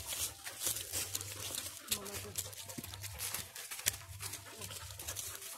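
Footsteps crunching and rustling through dry leaf litter on stone steps, a quick irregular crackle over a low rumble of the hand-held phone moving.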